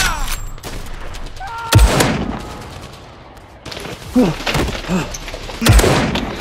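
Two loud gunshot-like blaster shots, about four seconds apart, each a sharp bang with a low thud, with a brief groaning voice between them.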